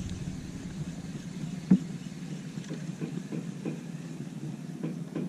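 Small petrol engine running with a steady low hum, with a few light clicks and one sharper knock a little under two seconds in.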